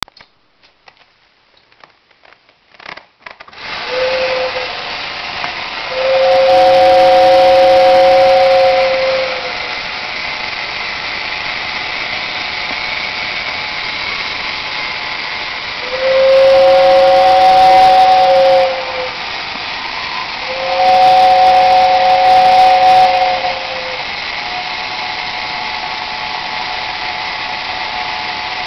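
A 1960s Modern Toys battery-operated tin showboat toy running: a few clicks, then its electric motor starts about three and a half seconds in and whirs steadily. Over the motor a two-note whistle sounds three times, each for two to three seconds.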